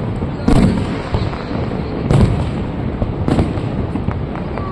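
Aerial fireworks shells bursting: three loud booms spaced a second or two apart, with fainter crackles between them, over a steady rushing background noise.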